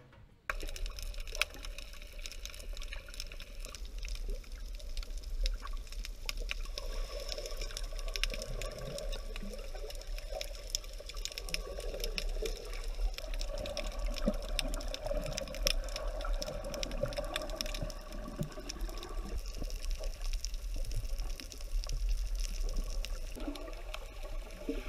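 Underwater sound picked up by a snorkelling camera: steady water noise with a low rumble and many small crackling clicks, starting abruptly about half a second in.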